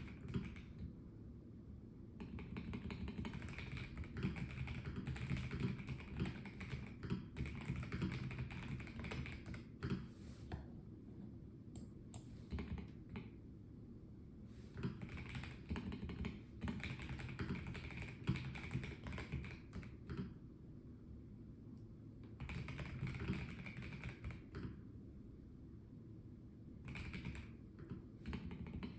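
Typing on a Melgeek Mojo84 plastic-case mechanical keyboard: runs of quick keystrokes broken by pauses of a second or two, with a few scattered single key presses.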